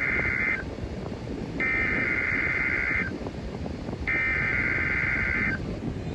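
NOAA Weather Radio SAME alert header: screeching digital data tones, first the end of one burst, then two more, each burst about a second and a half long with about a second between them, over a low radio hiss. The header announces a Required Weekly Test.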